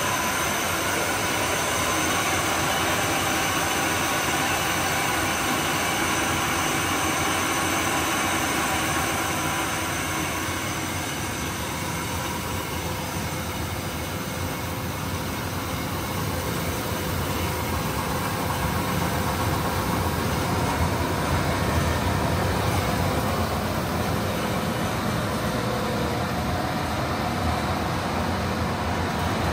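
Maize grits grinding machine running steadily under load, a continuous mechanical rush with a faint steady hum from its motor.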